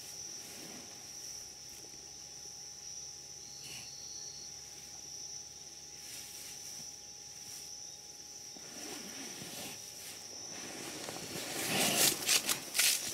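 Scuffling and rustling in sawdust, which grows into several loud rasping scrapes near the end, most likely a baby black rhino rooting and shuffling about in it. A steady high insect trill runs underneath.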